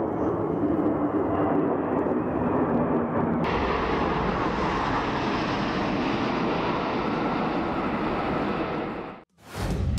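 Jet engine noise of a Tu-22M3 bomber's twin NK-25 turbofans. At first it is a steady rumble with a faint hum. About three seconds in it cuts to a brighter, hissier engine sound as the bomber passes along the runway. It stops abruptly near the end.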